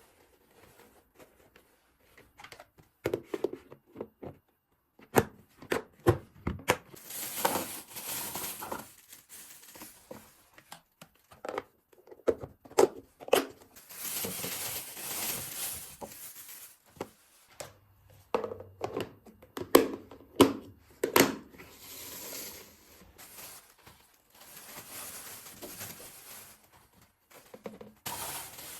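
Rustling and crinkling of packaging or wrap being handled, with scattered sharp clicks and knocks between the stretches of rustle.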